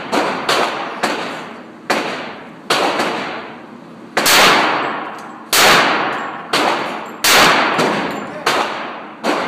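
Handgun shots at a shooting range: about eleven shots at uneven intervals, each with a ringing echo tail. Three of them, in the middle and latter part, are louder and heavier than the rest.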